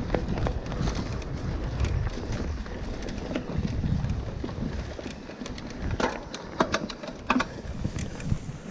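A mountain bike rolling along a dirt trail, with wind buffeting the microphone in a steady low rumble. The bike rattles and knocks sharply several times over bumps about six to seven and a half seconds in.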